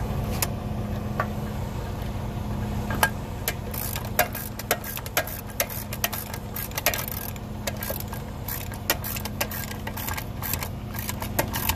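Socket ratchet wrench clicking in quick, irregular runs while a mounting nut on a truck air spring is tightened. A steady low hum sits underneath and is louder in the first few seconds.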